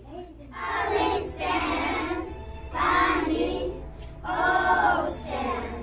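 A group of young children singing a song together, in three phrases of about a second or more each with short breaks between them.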